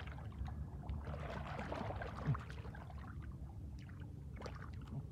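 Hands splashing and sloshing through shallow muddy water while digging into the mud to feel for fish, in irregular splashes with one louder thud a little over two seconds in.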